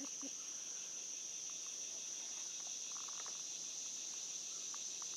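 Steady high-pitched chorus of insects from the surrounding trees, an unbroken drone, with a few faint light knocks around the middle.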